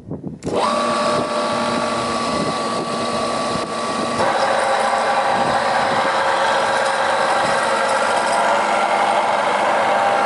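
KOFAMA Koronowo OLNG-7 knife sharpening machine running after starting up about half a second in, a steady whine with several held tones. About four seconds in it gets louder and its tone changes, as the machine's working load or action shifts.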